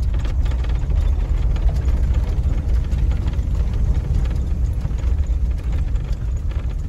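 Van driving on a dirt road, heard from inside the cab: a steady low engine and road rumble with faint rattles and clicks from the rough surface.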